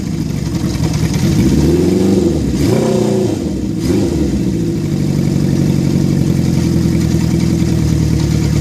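Honda CB750 Four's 750cc inline-four engine given a few quick throttle blips, each rising and falling in pitch, then settling to a steady idle about four seconds in.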